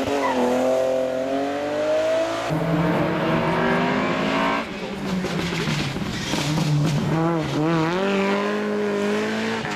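Rally car engines under hard acceleration through a corner. The engine pitch rises steadily, the sound jumps abruptly twice as one car's pass gives way to the next, and later the revs rise and fall quickly as the car is driven on the throttle.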